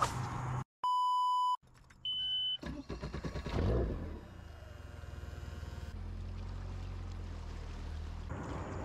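A loud, flat electronic beep lasting almost a second, set into audio that drops to dead silence around it, in the manner of an edited-in censor bleep. A second, shorter and higher beep follows. From about halfway on a motor hums steadily at a low pitch.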